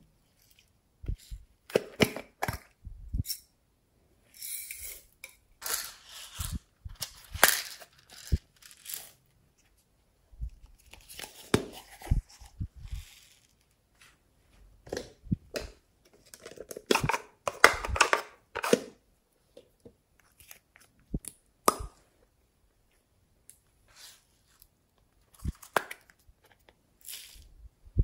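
Hands handling small plastic containers of slime add-ins over trays of slime: clicks, taps and crackling in short bursts separated by pauses.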